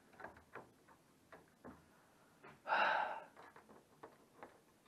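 Faint clicks and taps of a small model tank locomotive being handled and set on 00 gauge track, with one short breathy exhale about halfway through.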